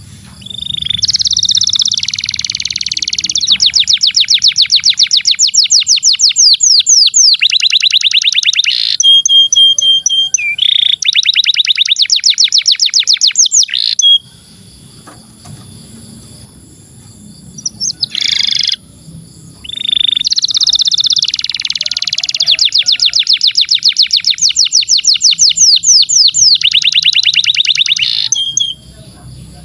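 Canary singing long phrases of fast rolling trills: two long bouts with a pause between them, broken by one short call.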